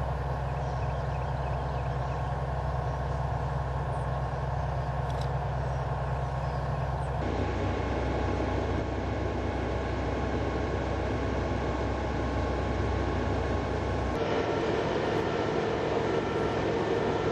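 Steady mechanical engine noise with a low hum, typical of heavy machinery running. Its character changes abruptly about 7 seconds in and again about 14 seconds in.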